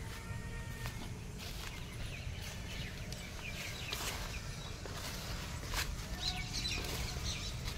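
Rustling and footsteps through leafy gourd vines, with a few short bird calls, chicken-like clucks, in the background.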